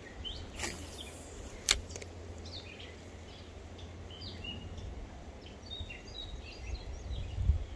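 Small birds chirping in short scattered calls over a steady low rumble, with one sharp click about a second and a half in.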